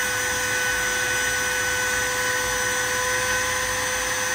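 Compact trim router running at a steady speed with a high whine, flush-trimming veneer level with the edge of a plywood cabinet panel.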